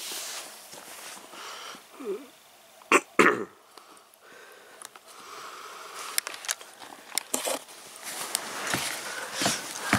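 A dog chewing and gnawing on a sneaker, with scattered small clicks and rustles of the shoe against the carpet and cloth. Two sharp, loud short sounds come close together about three seconds in.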